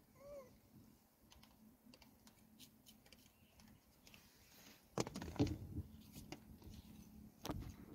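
Light tapping and clicking of a macaque's hands and feet on a car's bonnet and windscreen, heard from inside the car, with louder knocks about five seconds in and again near the end.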